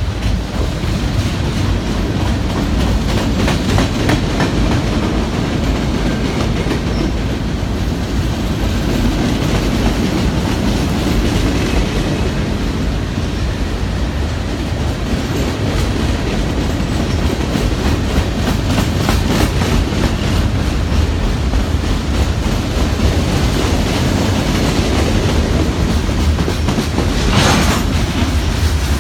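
Cars of CN train 422 rolling past, wheels clattering steadily over rail joints with a heavy low rumble. A brief sharp burst of noise comes near the end.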